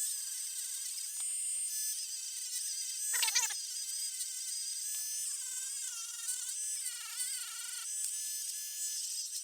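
Dremel rotary tool running at high speed as it polishes a leather sheath's metal rivets, its thin whine wavering in pitch as it is pressed. About three seconds in there is a brief louder burst with a falling pitch.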